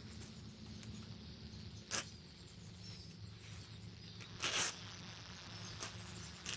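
Steady low electrical mains hum, with two sharp clicks about two seconds and four and a half seconds in.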